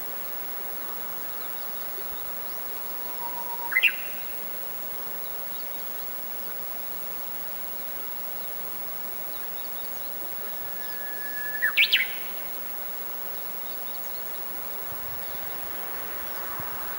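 Japanese bush warbler singing its 'hoo-hokekyo' song twice, each a long held whistle followed by a quick rising flourish, the second song about eight seconds after the first and louder. A few faint high chirps sit between the songs over a steady background hiss.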